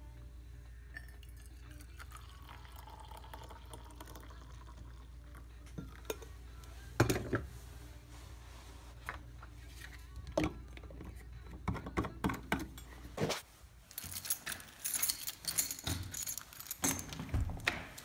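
MicroSpikes traction cleats, their steel chains and spikes jingling and clinking as they are handled and fitted over boots. A few separate knocks come first over a steady low hum; the jingling comes in dense bursts over the last few seconds.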